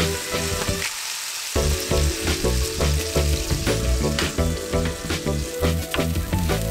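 Lamb chops sizzling, fat crackling steadily as they cook, under background music that drops out briefly about a second in.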